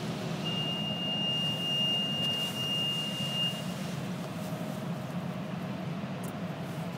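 Touch-free car wash water jets spraying the car, heard from inside the cabin as a steady hiss over a low machine hum. A steady high beep sounds for about three seconds near the start.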